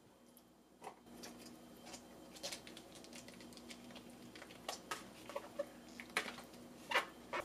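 Faint soft crinkles and scattered ticks of boiled, wilted cabbage leaves being peeled off the head by hand, against a metal sheet tray.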